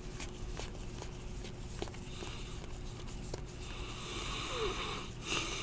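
Stack of trading cards being flipped through by hand: faint, irregular soft clicks as card edges slide past one another, over a faint steady hum.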